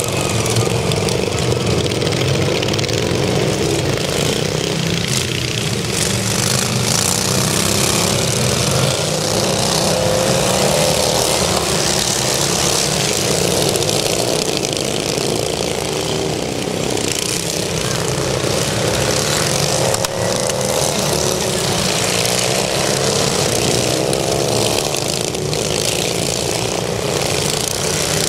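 Several racing riding-mower engines running hard at once, their pitches rising and falling as the mowers accelerate and corner.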